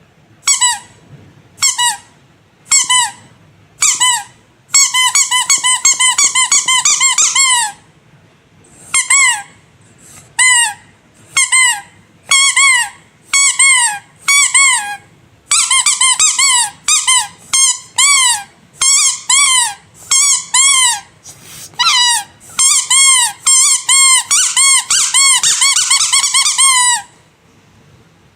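Squeaky rubber animal toys being squeezed: single squeaks about a second apart at first, then long runs of quick, rapid squeaks, each squeak a bright pitched toot that bends in pitch.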